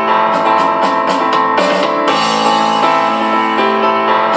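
Honor Magic 6 Pro smartphone's two built-in speakers playing a demo music track loudly: sustained keyboard chords over a beat of crisp, high percussion hits.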